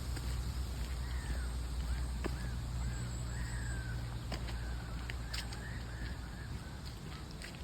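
A bird calling about half a dozen times in a row, each short call rising and falling in pitch, over a steady low rumble.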